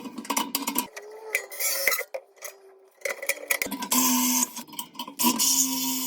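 Power drill run in short bursts, about three times, with metal clicks and clinks between.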